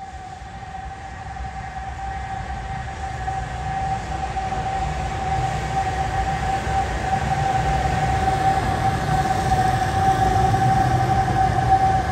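Historic SBB electric locomotive approaching and growing louder: a low rumble from the running gear under a steady high whine that holds one pitch.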